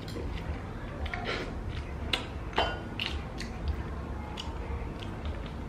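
Eating sounds: bread being bitten and chewed, with scattered small clicks and one brief metallic clink of a utensil against the pan of bánh mì chảo.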